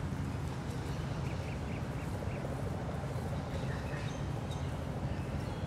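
Urban park ambience: a steady low hum of distant city traffic, with birds calling over it in short repeated notes, a quick run of about five a little over a second in and a few more scattered calls later.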